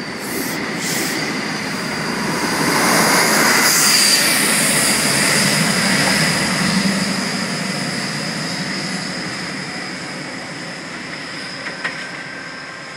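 Class 43 HST diesel power car 43073 accelerating away and fading into the distance. It screams, with a steady high whine over the engine, loudest for a few seconds as the power car passes.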